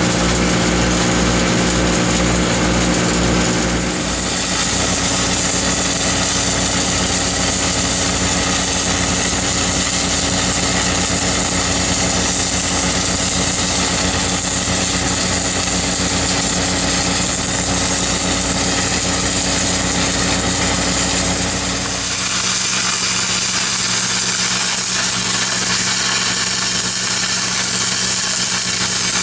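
Engine-driven welding machine running steadily, with the hiss of stick-welding (SMAW) arcs over it. The sound shifts abruptly twice, the deep engine part dropping away in the last several seconds.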